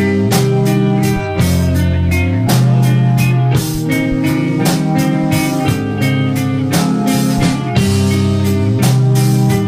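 Loud screamo/hardcore punk band music. Heavily distorted electric guitars play a riff that changes chord about once a second over steady, hard-hit drums.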